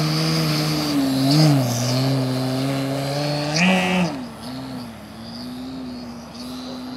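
Large electric RC aerobatic plane's brushless outrunner motor (Dualsky GA6000-8) and propeller droning, the pitch rising briefly about a second and a half in and again near four seconds in. After about four seconds it turns quieter and steadier.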